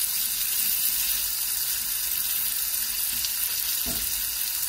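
Diced onion sizzling steadily as it fries in fat in a non-stick wok, stirred now and then with a silicone spatula. A single soft knock sounds near the end.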